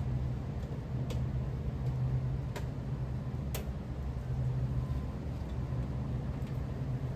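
A steady low machine hum with three sharp clicks in the first few seconds and a few fainter ones later, from hand work on the condenser fan motor and wiring of a Bard wall-mount HVAC unit.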